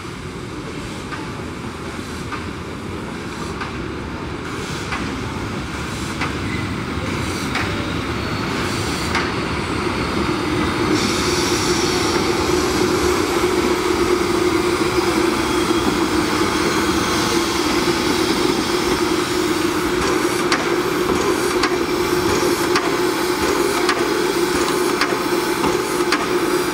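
Steam locomotive of Czechoslovak class 434.2 hauling passenger coaches, growing louder as it approaches, with regular knocks from the running gear and track. From about eleven seconds in a steady metallic squeal joins as it draws alongside.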